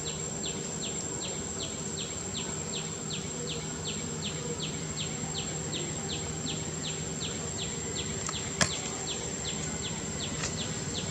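Insects buzzing in the background, with a steady high whine and an even run of short falling chirps, about three a second. A single sharp click comes about eight and a half seconds in.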